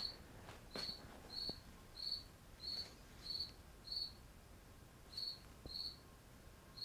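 Cricket chirping: short, high, single-pitched chirps repeating about every two-thirds of a second, with a brief pause about four seconds in.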